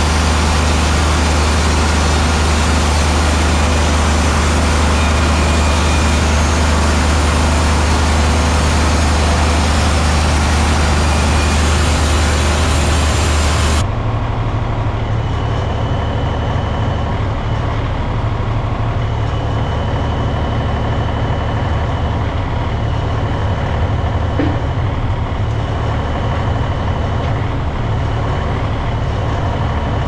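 Wood-Mizer LT50 band sawmill cutting through a log: the mill's engine running steadily under load with a dense hiss of the band blade and sawdust. About halfway it changes abruptly to a duller, slightly quieter engine running with a faint steady whine, the cutting hiss gone.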